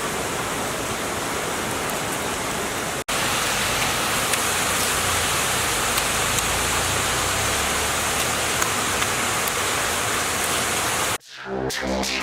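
Steady rushing water noise, cut off suddenly about three seconds in and picking up again a little louder. It ends about a second before the end, where music begins.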